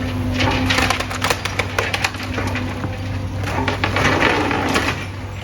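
Wood cracking, splintering and crunching as old houses are torn down during demolition, with many sharp cracks over a steady low hum.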